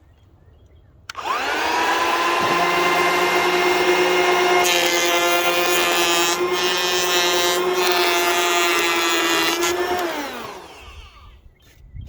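Ryobi 18V cordless hand planer started about a second in, its motor whining up to speed. Its cutter head then planes rough-cut cedar for about five seconds, adding a harsher cutting noise. Near the end the planer is switched off and its whine falls away.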